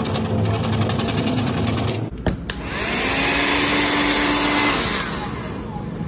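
Small cordless handheld vacuum cleaner running. About two seconds in there are a couple of sharp clicks, then the motor whirs up with a rising whine over a loud airy hiss, runs steadily and winds down near the end.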